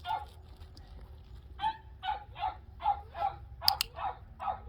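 Puppy barking in a rapid run of short barks, about two to three a second, starting under two seconds in. A sharp click sounds among the barks.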